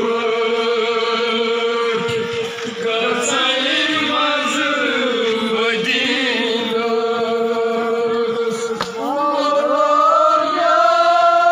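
Men chanting in long, held notes, with the pitch gliding up and the chant swelling louder about nine seconds in.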